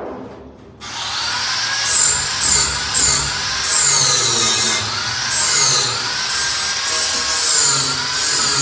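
Handheld power tool working steel: a high motor whine starts about a second in and dips in pitch again and again as it bites, over a steady hiss.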